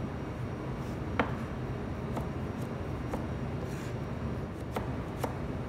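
Kitchen knife slicing tomatoes on a plastic cutting board: a few sharp, irregular knocks of the blade against the board, roughly one a second, over a steady low background hum.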